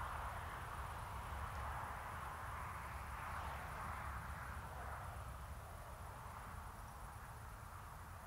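Faint outdoor evening ambience: a steady high-pitched insect trill over a low rumble, slowly fading out.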